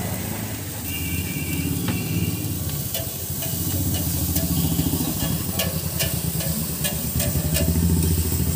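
Frying sizzle from a hot griddle, with light clicks of utensils and a low rumble underneath.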